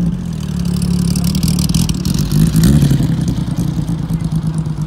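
Classic Jaguar D-type racing car engine running at low revs as the car rolls slowly, with a brief blip of the throttle about two and a half seconds in.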